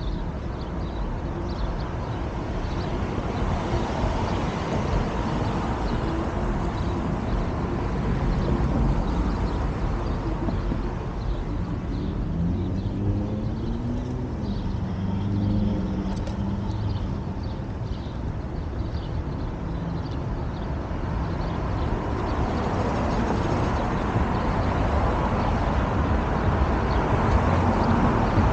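Outdoor street ambience with road traffic: a steady low rumble of passing cars that grows louder over the last few seconds as a vehicle approaches.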